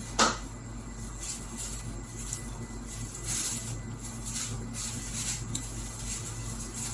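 Sounds of someone eating: a sharp knock just after the start, then a string of short, wet chewing and smacking noises, over a low steady hum.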